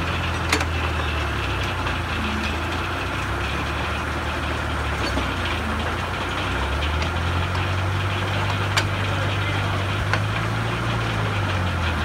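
Engine powering an antique sawmill, running steadily at a low even pitch that rises slightly about halfway through. A couple of sharp knocks come over it, one near the start and one about nine seconds in.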